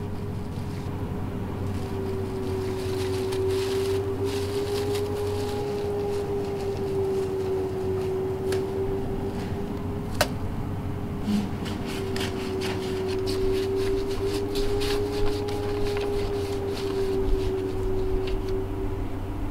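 Sound-design drone: one held tone that wavers slowly in pitch over a low hum, with scattered clicks and crackles, more of them in the second half.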